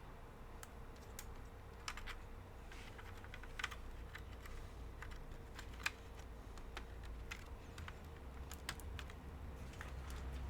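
Irregular light clicks and taps of small laptop parts being handled during a Wi-Fi card swap, over a faint steady hum.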